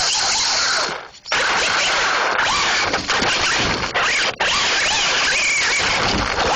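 Traxxas Slash 4x4 RC truck's electric motor and drivetrain whining as it is driven over rough dirt, the pitch rising and falling with the throttle. The sound cuts out sharply about a second in and dips briefly a few more times as the throttle is let off.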